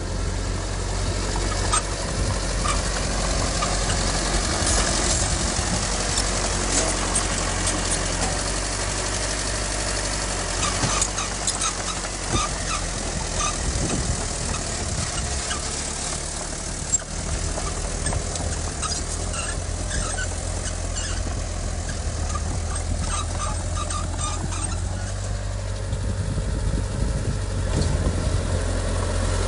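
Heavy diesel earthmoving machine engine running steadily at a low pitch, with many short metallic clicks and clanks in the middle stretch.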